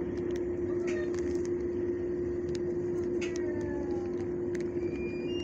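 Steady mechanical hum at one unchanging low pitch over a low rumble, with a few faint short clicks and brief high chirps.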